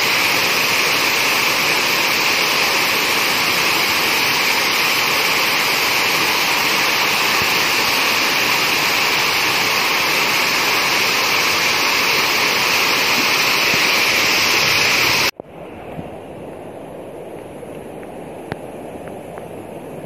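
Rain falling in a steady, unbroken hiss. About fifteen seconds in it cuts off abruptly, leaving a much quieter steady hiss with a single click near the end.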